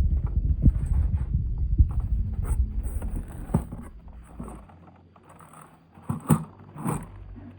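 Handling noise from plastic toy vehicles: a low rumble for the first three seconds, then a few scattered clicks and knocks.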